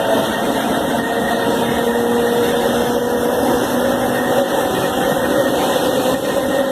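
CPTM Série 4400 Budd-built electric multiple unit, heard from on board while accelerating: its traction motors run loudly with a steady whine that rises slowly in pitch over the rumble of the running train.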